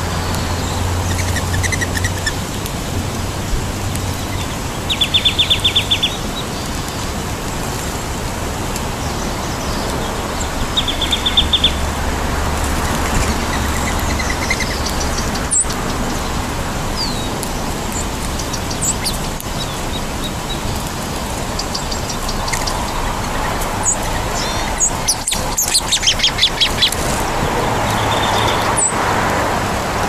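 Small songbirds chirping, with two short, fast trills of repeated high notes in the first half and a denser run of chirps later, over a steady rushing background noise.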